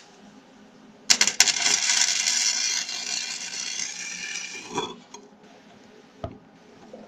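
Electric arc welder crackling and sizzling while welding a quad's broken frame: the arc strikes with a couple of pops about a second in, runs steadily for about four seconds, then stops. A single click follows near six seconds.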